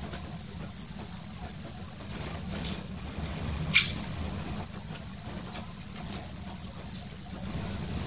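Great spotted woodpecker giving a single sharp, loud "kik" call about four seconds in, over a steady low rumble and faint high chirps of small birds.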